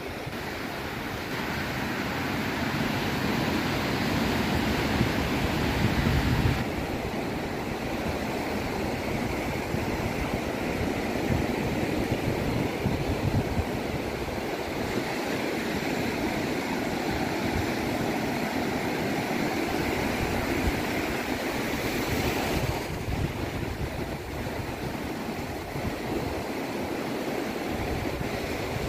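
Atlantic surf breaking and washing onto a sandy beach as a steady rush, with wind buffeting the microphone. The sound shifts abruptly about six seconds in and again a little over twenty seconds in.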